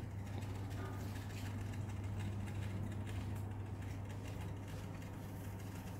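Steady low machine hum with a faint even background noise.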